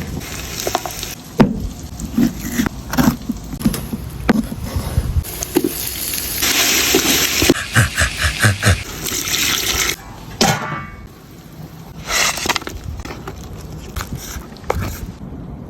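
Kitchen cooking sounds: a run of sharp knocks and scrapes of utensils and cookware, with a stretch of hissing, like frying or running water, about halfway through.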